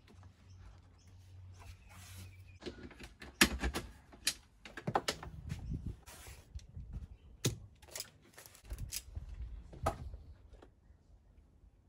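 A run of irregular knocks, clicks and rustles of objects being handled in a small room, with a low hum during the first two seconds or so.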